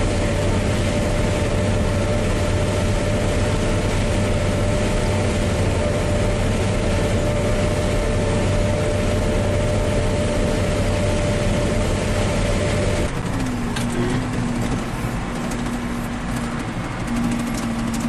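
Claas Lexion combine harvester running steadily at harvesting speed, its engine and threshing machinery giving a constant low hum with a steady whine. About two-thirds of the way in it cuts abruptly to a tractor engine running, heard from inside the cab, with a different, lower-pitched steady tone.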